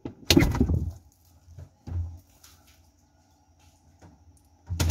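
Refrigerator door pulled open, with a loud burst of noise about a third of a second in, a dull knock about two seconds in, light clicks, and another loud knock near the end.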